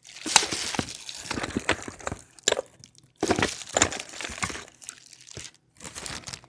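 Rummaging through a stash of glass vacuum tubes: quick, irregular clicks, clinks and rustling as tubes are handled and knocked together, with a short pause about three seconds in.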